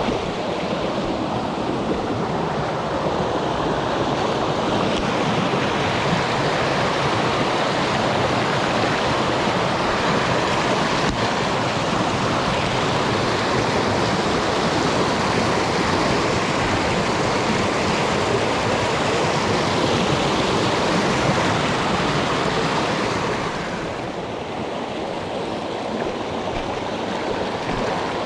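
Mountain stream rushing over rocks: a steady, loud wash of water. It grows a little softer and duller for a few seconds near the end.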